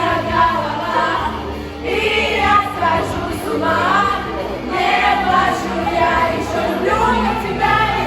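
Several voices singing together over a pop backing track with a steady bass line, in karaoke-style group singing.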